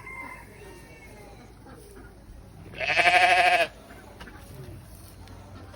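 A single loud, quavering bleat from a goat or sheep, about a second long, starting a little under three seconds in.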